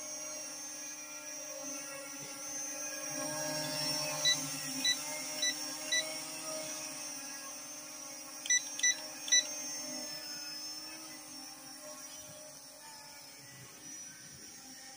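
Huanchenda H23 mini quadcopter hovering on DJI propellers, its motors and props giving a steady hum. Short electronic beeps come four times about four to six seconds in and three times around nine seconds. The hum grows fainter near the end.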